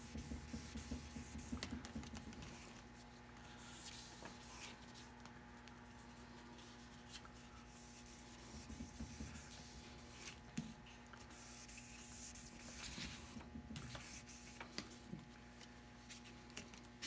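Folded wet sandpaper rubbed back and forth over the wet, soapy varnish of a wooden half-hull model: faint scrubbing strokes in runs, with scattered small ticks.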